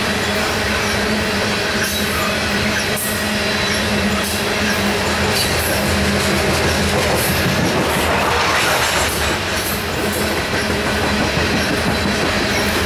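Loaded coal train's hopper cars rolling past: a steady loud rumble of steel wheels on rail, with scattered wheel clicks and a faint steady wheel whine, swelling slightly about two-thirds of the way through.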